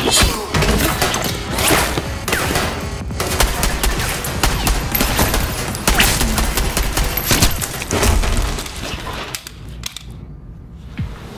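Film firefight gunfire: rifles firing in rapid, overlapping volleys, dense and loud, thinning out and stopping about ten seconds in.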